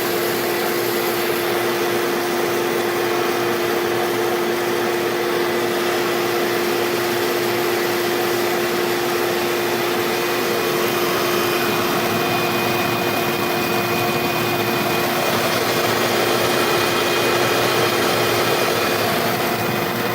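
Shop vac running steadily with a constant hum, drawing air through a homemade seed cleaner to pull chaff away from threshed hemp seed.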